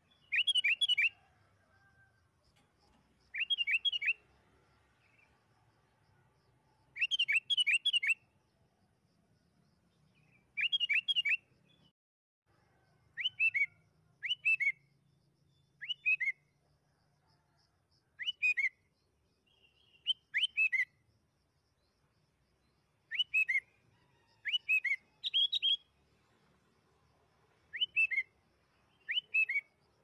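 Sooty-headed bulbul (kutilang) singing: short phrases of two to four quick, bright whistled notes, repeated every one to three seconds.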